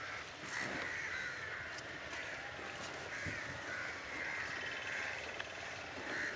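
A bird calling over and over, one call every second or two, each lasting about half a second to a second, over a steady background hiss.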